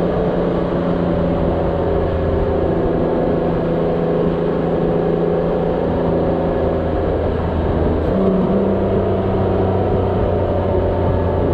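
A motorcycle engine cruising steadily, heard from on board with wind and road noise. About eight seconds in, the engine note steps up slightly.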